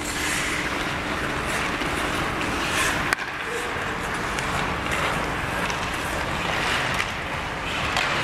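Ice hockey skates scraping and gliding on the rink ice over steady arena noise, with one sharp click about three seconds in.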